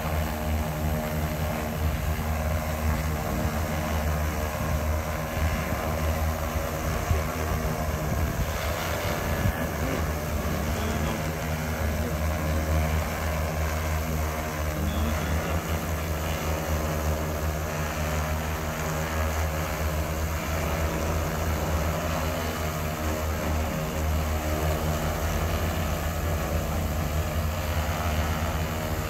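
X1400 industrial multirotor drone hovering, its electric motors and propellers giving a steady drone of several held tones.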